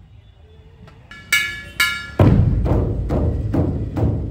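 Maharashtrian dhol-tasha ensemble: after a brief lull, two sharp ringing strikes come about a second in. Then the big dhol barrel drums and tasha drums crash back in together about two seconds in, beating a steady, loud rhythm.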